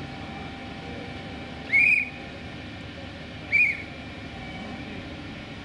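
Two short, high whistle blasts about two seconds apart, each rising and then dropping in pitch, over steady low background noise.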